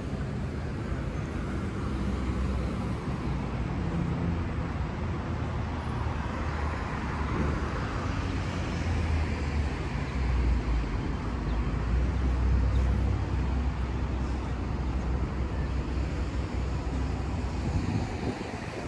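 Road traffic on a busy city street: a steady rush of passing cars with a low rumble, swelling louder for a few seconds around the middle as vehicles pass close.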